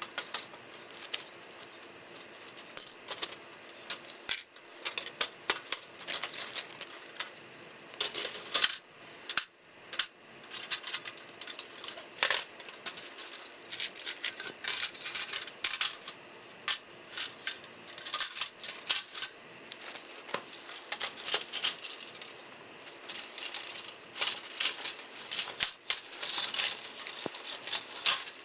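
Wood fire burning in a stainless steel, mesh-bottomed fire pit: a dense, irregular crackle of sharp pops and clinks, several a second, with louder clusters now and then.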